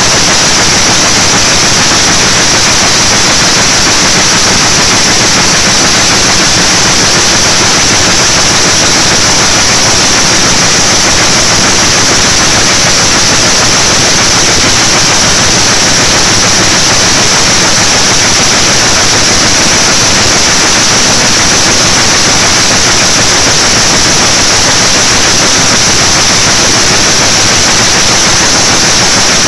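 Jacquard weaving loom running steadily at speed: a loud, continuous fast mechanical clatter.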